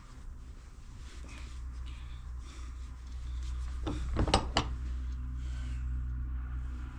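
Metal hose fittings being worked into a hose by hand: rubbing, with a few sharp clinks a little after four seconds in, over a steady low hum.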